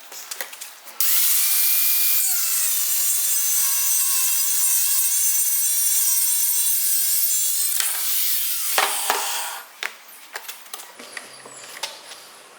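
Angle-grinder-driven homemade wood chipper with a stack of circular saw blades, shredding wood: a loud high whine with a harsh cutting noise starts about a second in and drops in pitch a second later. It stops near ten seconds in, followed by scattered light clicks and rattles.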